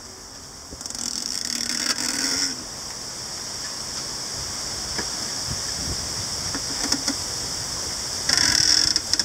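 Tall, densely packed bamboo culms creaking against one another as they sway, over a steady rustle of leaves. The creaking swells louder about a second in and again near the end, with a couple of sharp knocks in between.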